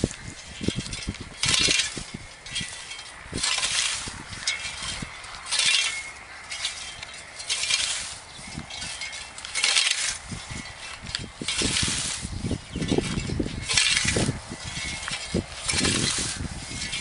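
A rhythmic crunching or swishing noise that repeats about every two seconds, with soft knocks and clinks between the strokes.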